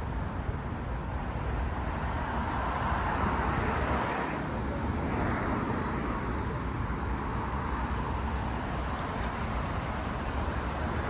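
City street traffic: a steady hum of passing cars, with one vehicle going by more loudly about three to five seconds in.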